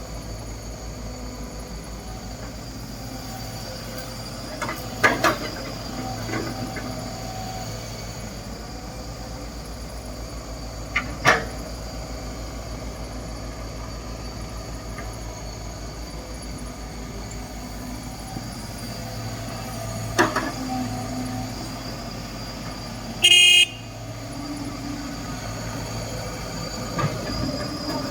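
Caterpillar 312B excavator's diesel engine running steadily, with sharp clanks about 5, 11 and 20 seconds in. A short loud horn-like toot about 23 seconds in.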